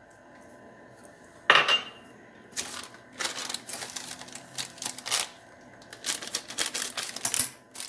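Kitchenware clattering: one sharp knock about one and a half seconds in, then a run of irregular clinks and knocks.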